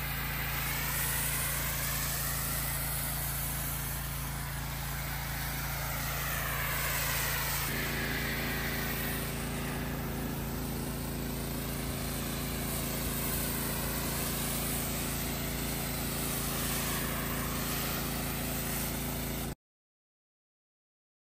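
Pressure washer running with a foam cannon spraying: a steady motor-and-pump hum under the hiss of the spray, the hiss swelling and shifting in tone as the spray is swept back and forth. The hum thickens about eight seconds in, and near the end the sound cuts off abruptly.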